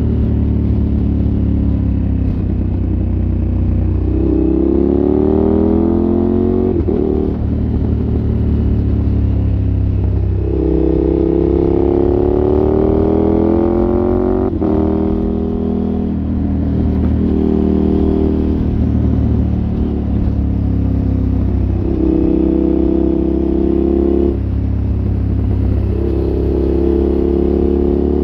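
The V-twin engine of a KTM 1290 Super Adventure S, heard through an aftermarket exhaust, accelerating. Its pitch rises in pulls of a few seconds, broken by quick gear changes, between steadier stretches.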